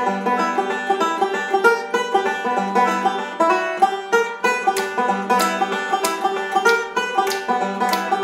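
Five-string banjo and acoustic guitar playing a fast bluegrass instrumental together, a quick run of bright picked notes.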